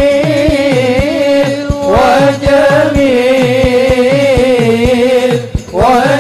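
Men's group singing Arabic sholawat in unison through microphones, a single sustained melody line, over a steady beat of deep drum strokes about two to three a second. The singing breaks off briefly near the end and comes back in with a rising phrase.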